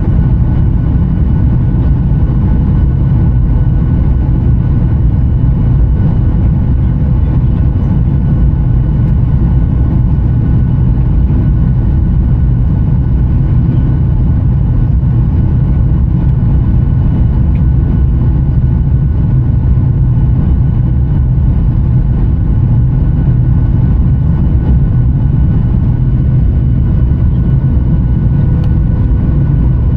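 Boeing 737-900ER's CFM56-7B jet engines running at a steady power: a loud, even low roar with faint, steady whining tones above it, unchanging throughout.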